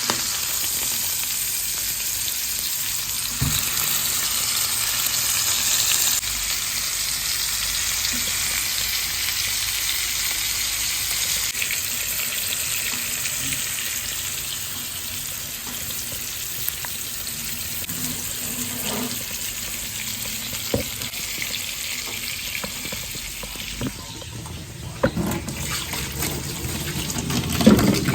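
Lamb shanks sizzling as they brown in hot oil, a steady frying hiss with a few small knocks; it gets busier and louder near the end.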